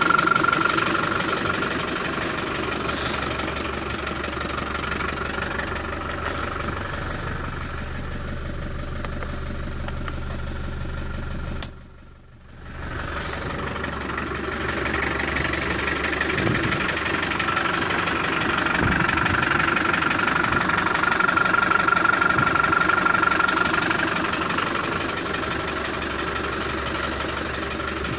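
Land Rover Discovery 300Tdi's 2.5-litre four-cylinder turbodiesel idling steadily, with a steady high whine that grows louder in the second half. Near the middle a click is followed by the sound dropping away for about a second before it returns.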